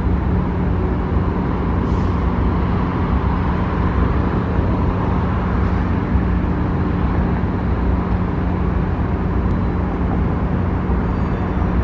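DC Streetcar running along its track, a steady low electric hum over an even rumble.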